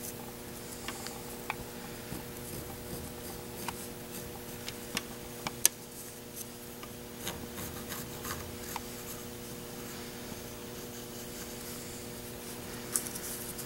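Pencil scratching and rubbing as it traces around a paper template on a wooden block, with scattered small taps and clicks, the sharpest about six seconds in. A steady low hum sits underneath.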